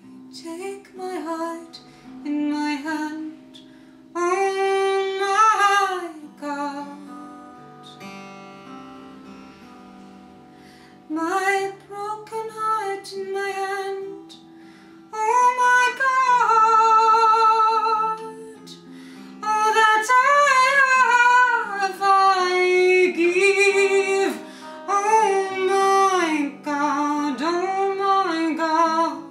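A woman singing slow melodic phrases, with vibrato on long held notes, to her own acoustic guitar accompaniment. The guitar plays on alone for a few seconds near the middle between sung phrases.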